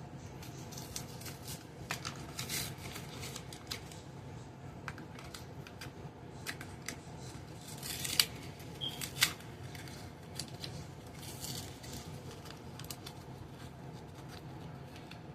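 Small clicks and rattles from handling a plastic RC toy and its batteries, scattered irregularly, with two sharper clicks about eight and nine seconds in.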